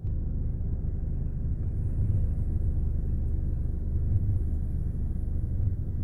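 Steady low rumble of a car driving slowly, heard from inside the cabin.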